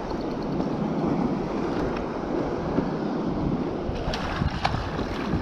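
Wind buffeting the microphone over water sloshing against a kayak, with a few light clicks or knocks about four seconds in.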